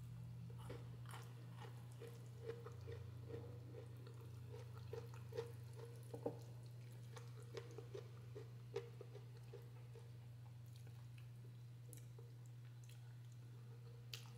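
Faint chewing and small wet mouth clicks of a person eating instant noodles, over a steady low hum.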